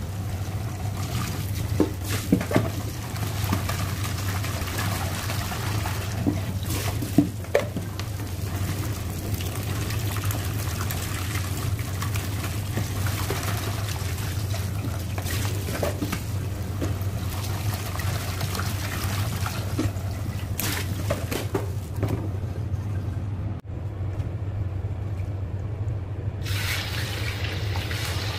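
Tap water running into a plastic bowl of raw chicken pieces in a stainless-steel sink as hands rinse and rub the chicken, with a few sharp knocks against the bowl and sink. A steady low hum runs underneath. Near the end the sound changes to a brighter hiss of chicken frying in oil in a wok.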